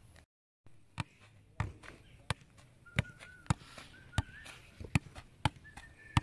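A football being juggled with the feet and thighs on grass. Each touch gives a sharp thud, about every two-thirds of a second in a steady rhythm.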